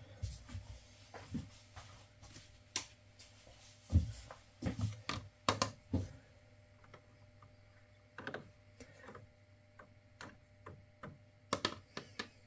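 Print tongs clicking and tapping against a plastic developing tray while a sheet of photo paper is pushed around in the fixer, with irregular light clicks and scrapes, most of them from about four to six seconds in and again near the end.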